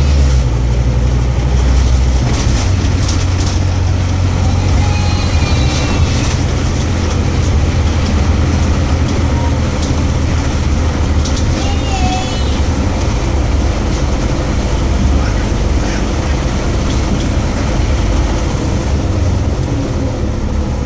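Scania OmniCity single-deck bus heard from inside its passenger cabin: steady low engine and road rumble while it runs, with a few short rattles.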